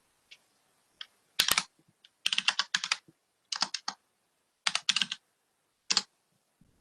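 Computer keyboard typing in short bursts of key presses with pauses between them.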